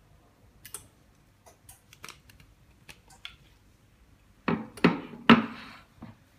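Light clicks and taps, then three louder knocks a little past four seconds in, as the laminated iPhone 6 Plus LCD and frame are handled and taken out of the laminating mold.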